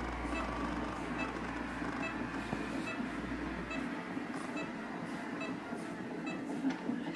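Fetal heart monitor (CTG) playing the baby's heartbeat through its Doppler speaker: a fast, even whooshing pulse of about two beats a second. A low hum underneath stops about four seconds in.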